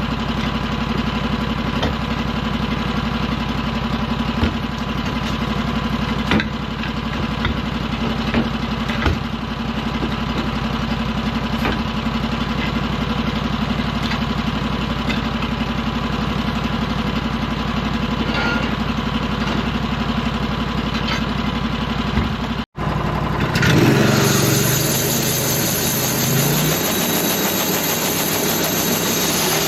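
Engine of a portable band sawmill running steadily at idle, with a few light knocks. After a sudden cut about three-quarters of the way through, the engine revs up and settles to a higher steady speed with a high whine from the running band blade.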